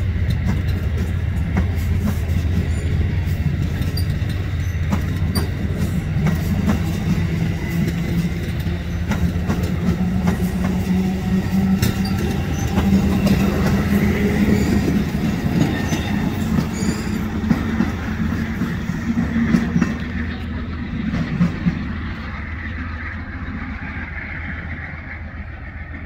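Amtrak Amfleet passenger cars rolling past, a steady low rumble of wheels on rail with repeated clicks over the rail joints. The sound fades over the last few seconds as the end of the train moves away.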